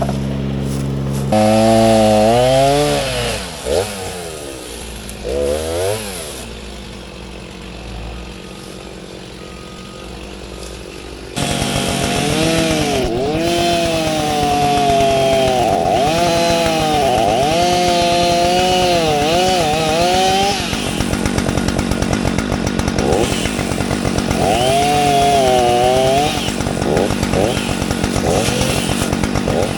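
Two-stroke chainsaw revving, then going quieter for a few seconds. About eleven seconds in it comes up loud, and its pitch repeatedly dips and recovers as it cuts.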